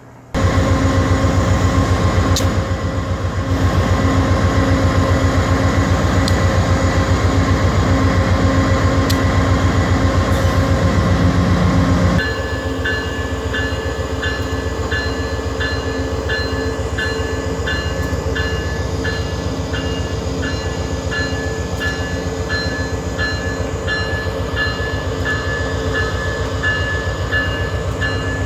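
VIA Rail GE P42DC diesel locomotive running, a deep steady engine drone with a hum over it. About twelve seconds in the sound drops a little and a regular high ringing tick comes in, about two a second.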